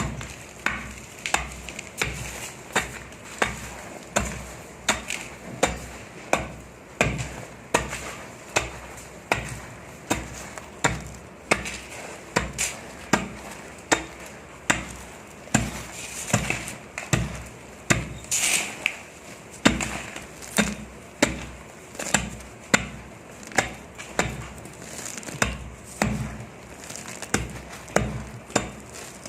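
Dusty, crunchy sand clumps crumbling, a steady run of crisp, gritty crunches about one and a half a second.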